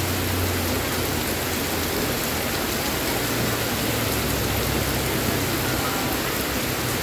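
Heavy tropical rain falling steadily, a dense even hiss of drops striking wet ground and puddles.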